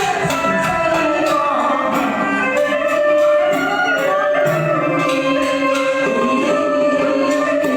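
Chèo (Vietnamese folk opera) accompaniment music: a sustained instrumental melody over a steady, rapid clicking beat.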